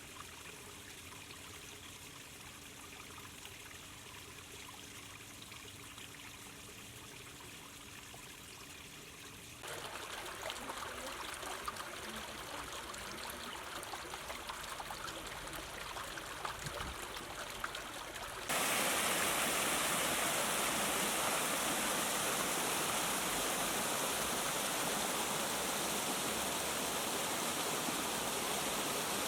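Running water, a steady rushing hiss like a stream or waterfall, in three spliced stretches that each get louder: faint at first, louder about ten seconds in, and loudest from about eighteen seconds in.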